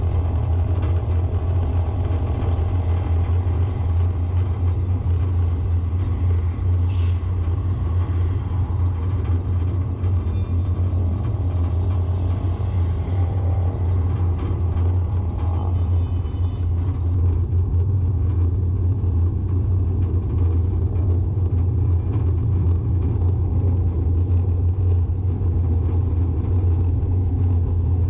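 Steady low rumble of a road vehicle driving along a paved street: engine, tyre and wind noise.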